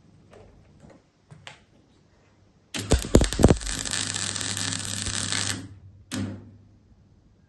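Electric arc welding on steel flat bar: a few sharp crackles as the arc strikes, then about three seconds of steady crackling sizzle over a low hum, which stops abruptly. A brief second burst follows about half a second later.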